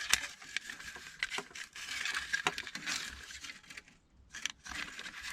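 A run of small clicks, taps and scrapes from handling parts of a disassembled vacuum cleaner, with a short quiet spell about four seconds in.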